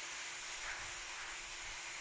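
Garden hose spraying water, a steady hiss.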